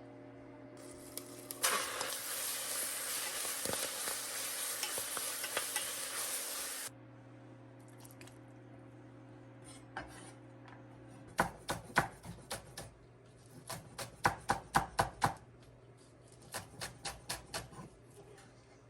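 Food sizzling in a hot pan for about five seconds, cutting off abruptly, then a utensil stirring and clinking against the pot in several quick runs of strokes over a low steady hum.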